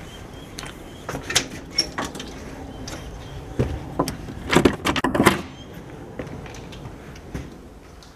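A storm door and a house front door being opened: scattered latch and handle clicks, with a cluster of louder knocks and rattles about halfway through.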